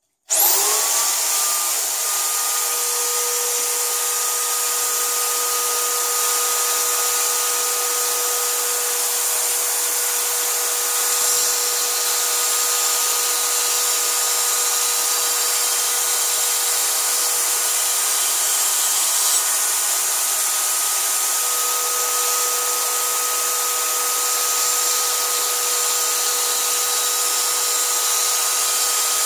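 Electric drill fitted with a grinding stone starting up and then running steadily at a constant high whine, with a steel cleaver edge held against the spinning stone to grind it.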